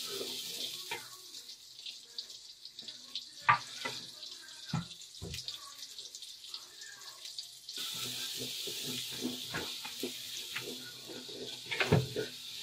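Sliced onions sizzling as they fry in an aluminium pot, stirred with a wooden spatula that knocks against the pot several times. The sizzle dies down after about a second and comes back strongly about eight seconds in.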